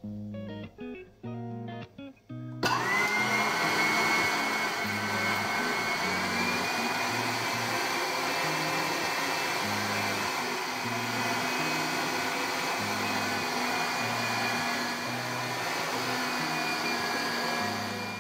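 Braun electric meat grinder switched on about three seconds in, running steadily with a high motor whine as it grinds kibbeh dough. Guitar background music plays under it.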